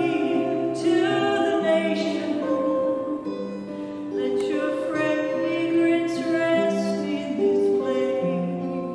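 Music: a woman singing with instrumental accompaniment, in long held notes over a moving bass line.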